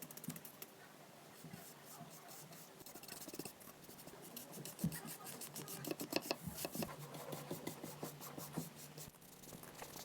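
Hand-sanding of wood: rapid, scratchy rubbing strokes with scattered small clicks, busiest and loudest in the middle.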